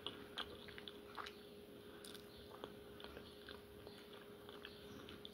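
Faint mouth sounds of a person chewing stewed chicken feet: soft, scattered clicks and smacks over a faint steady hum.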